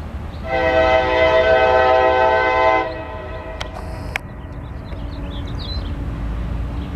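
Multi-chime air horn of a CSX freight locomotive hauling a grain train, sounding one long blast of about two seconds that starts half a second in, over a low steady rumble.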